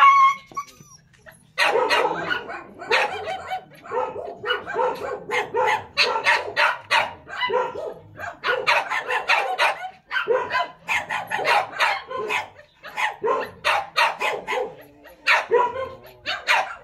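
A dog barking and yelping over and over in short, sharp calls, a few a second, after a brief pause near the start; the calls come from a female dog being mounted by a Siberian husky for breeding.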